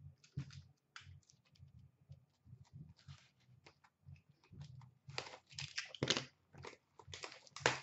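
A sealed hockey card box being handled and opened: a run of small clicks and crinkly rustles of cardboard and wrapper, denser near the end.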